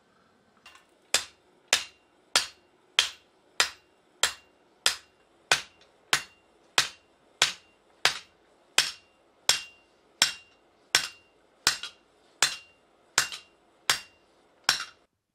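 Hand hammer striking a red-hot steel blade blank on an anvil during forging: about twenty steady blows, roughly one and a half a second and slowing slightly, each followed by a short metallic ring.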